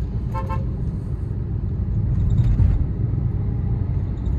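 Steady low rumble of vehicles and road traffic on a busy city road, heard while on the move. A short steady tone sounds about half a second in.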